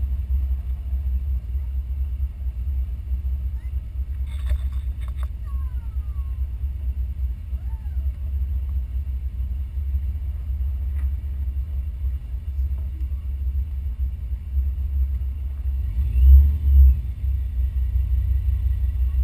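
Low, steady rumble of a 392 Hemi V8 idling while the car sits stopped, with a brief louder swell about sixteen seconds in.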